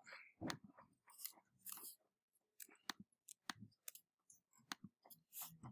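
Near silence with faint, irregular clicks from a laptop being operated.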